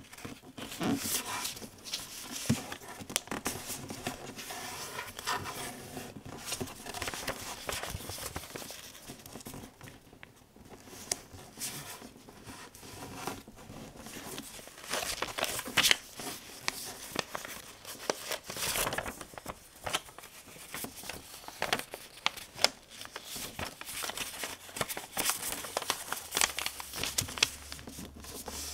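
A sheet of paper being folded and creased by hand, crinkling and rustling, with many short sharp clicks as the folds are pressed down.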